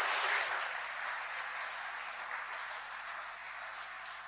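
Audience applauding, loudest at first and gradually dying down.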